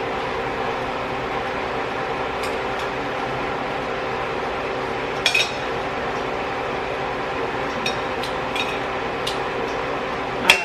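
Metal utensil clinking against a pot and plate now and then as chicken pieces are moved into the pot, the loudest clink near the end, over a steady hum.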